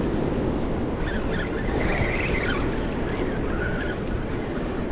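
Steady rush of heavy current below a dam with its spill gates open, water churning past at high flow.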